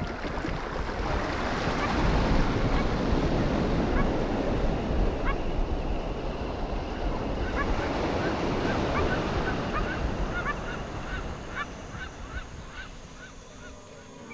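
Ocean surf washing over a rocky beach: a wave swells about two seconds in and slowly fades, with wind rumbling on the microphone. Short bird chirps repeat through the second half.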